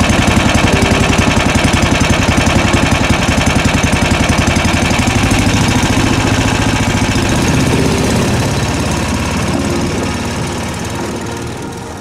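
Engine of an Uragan motorized ice tug (motobuksirovshchik) running under way across snow-covered ice, a fast, even firing beat; it eases off a little near the end.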